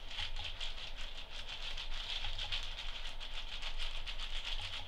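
Small foam beads pattering and rattling in a clear plastic bag as they are shaken out, with the bag crinkling: a continuous run of soft, quick ticks.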